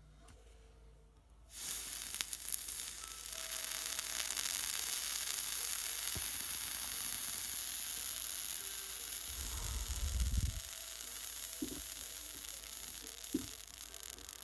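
Vape coil being dry-burned on a rebuildable atomizer: a steady sizzling hiss starts suddenly about a second and a half in as residue burns off the glowing, blackened staple staggered fused clapton coil. A brief low rumble comes near the ten-second mark.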